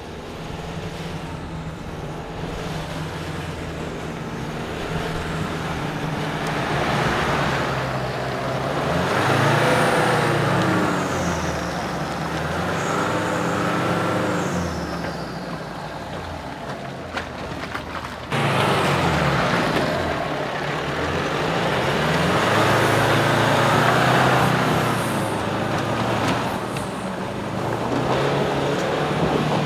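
Four-wheel-drive ute's engine revving hard in second gear, low range, with the rear diff locker engaged, as it climbs a steep, slippery clay track; the revs rise and fall repeatedly. The sound steps up abruptly in loudness about two-thirds of the way through.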